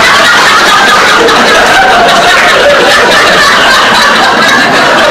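Theatre audience laughing loudly and steadily, a dense wash of many voices laughing together.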